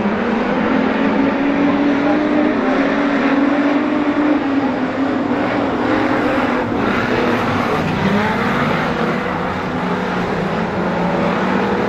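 A pack of street stock race cars racing on a dirt speedway oval, their engines running hard in a steady loud drone whose pitch rises and falls.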